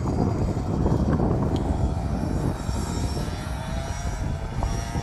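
Wind rumbling on the microphone of a moving bicycle. From about halfway in, a faint engine tone joins it, rising slowly in pitch.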